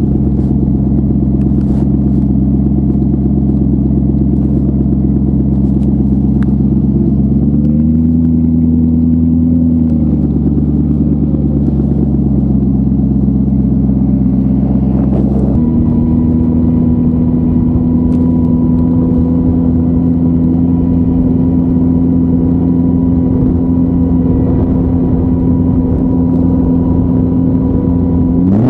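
Boss Hoss BHC-3 motorcycle's 6.2-litre LS3 V8 engine running under way. Its note rises and drops back about eight seconds in, then steps up to a steady higher pitch about halfway through. At the very end a quick rev rises and falls.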